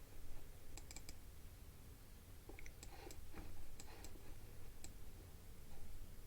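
Scattered quiet clicks of a computer mouse, some in quick pairs, over a faint steady low hum.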